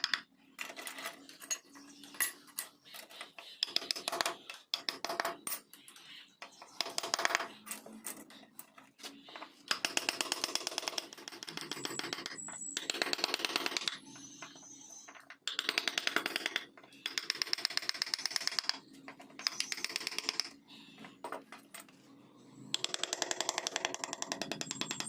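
Wood-carving tool working on wood in bursts of rapid chattering taps, each burst lasting a second or two with short pauses between.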